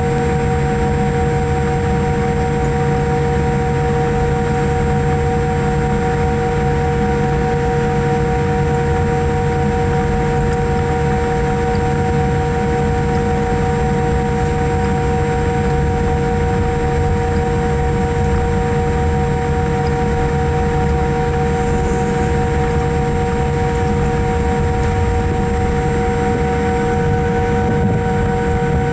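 Cabin noise of a Boeing 787-8 airliner taxiing, heard from a window seat: a steady low rumble and hiss with several steady whining tones held on top.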